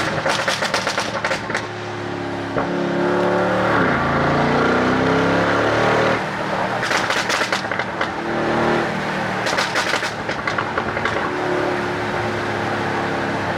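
Mercedes-AMG G 63's twin-turbo V8 being revved, its exhaust crackling and popping in rapid bursts as the throttle closes after each rev, the sign of a pop-and-bang exhaust tune. There are about four bursts of pops, with a rev rising and held in between.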